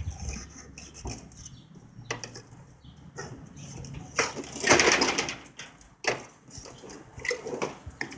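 Irregular knocks, clicks and scraping from handling tools and door hardware during a spring repair, with a longer, louder scrape about four to five seconds in.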